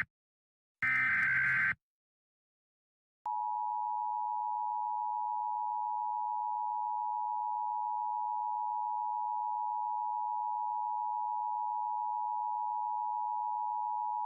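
Emergency Alert System broadcast signal. About a second in comes a harsh, second-long digital data burst, the last of the SAME header bursts. After a short silence, a steady attention tone starts at about three seconds and holds unbroken.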